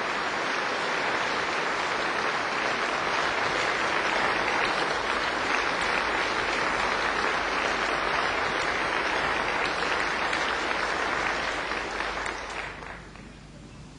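Large audience applauding, steady and sustained, dying away about thirteen seconds in.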